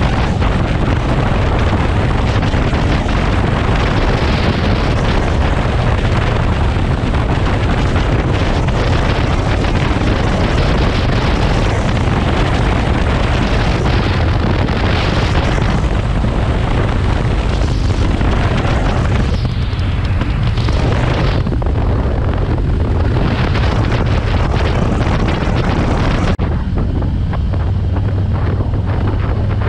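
Heavy wind buffeting on the microphone of a riding motorcycle, over the low, steady rumble of its engine. The wind noise eases near the end.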